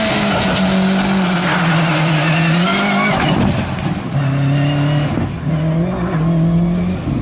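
Race car engine revving hard and held high as the car pulls away from a sprint start line, with a high whine over it. About three seconds in the sound cuts to the car out on the circuit, its engine note dropping and picking up again twice.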